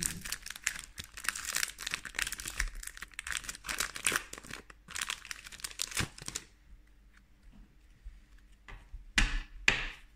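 Foil Pokémon card booster pack being torn open and crinkled in the hands, a dense crackling rustle for about six seconds. It then goes quieter, with two short, louder rustles near the end.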